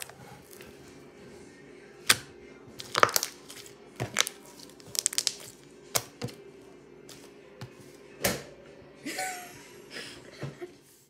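Slime being squished and poked by hand, giving sharp irregular pops and clicks every second or so, over a faint steady hum.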